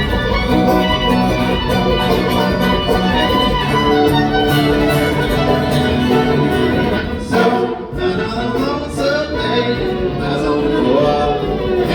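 Live band playing a country-bluegrass style song, an instrumental stretch between sung lines, with a brief drop in the playing about two-thirds of the way through.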